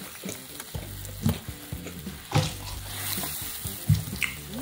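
Chopped frog meat with chillies sizzling in a hot wok while a metal ladle stirs it, scraping and knocking against the pan several times.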